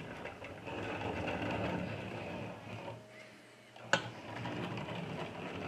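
Diecast toy container truck pushed by hand across a tabletop, its plastic wheels whirring as it rolls, with one sharp click just before four seconds in.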